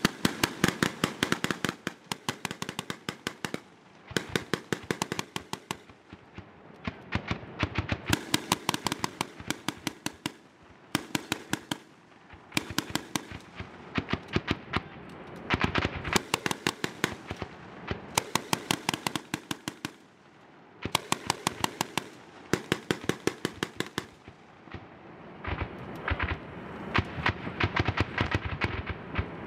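Automatic gunfire: about ten bursts of rapid shots, each lasting one to four seconds with short pauses between.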